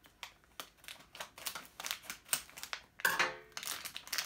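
Scissors snipping open a plastic squishy packet, then the plastic wrapper crinkling as it is handled: a run of quick, irregular clicks and rustles.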